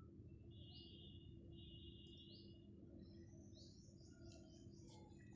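Near silence: room tone with a faint steady hum and a few faint, short high chirps.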